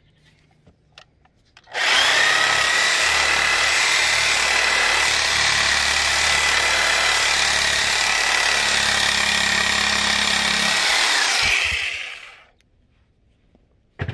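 Electric reciprocating saw running steadily for about ten seconds as it cuts through elk bone, then winding down and stopping.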